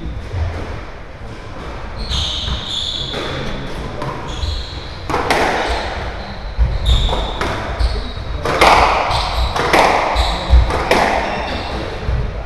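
Squash rally in a walled court: a string of sharp ball strikes off rackets and walls, echoing in the court, more frequent and louder from about halfway through. Court shoes squeak briefly on the wooden floor between the hits.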